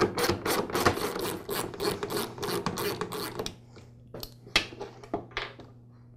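Rapid, steady clicking of a hand driver turning out the screws that hold a lawn mower's front height adjuster plate, stopping about three and a half seconds in. A few separate clicks and knocks follow as the loose screws and plate are handled on a wooden bench.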